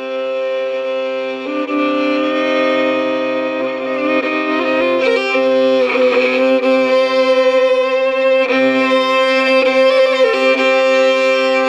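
Solo fiddle playing an instrumental passage of an Irish air, long bowed melody notes over a steady low note held beneath them, growing a little louder about a second and a half in.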